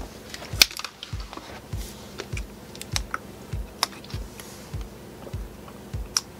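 Sharp light clicks and crackles of a plastic water bottle being opened and handled, over a steady low thump about every 0.6 seconds.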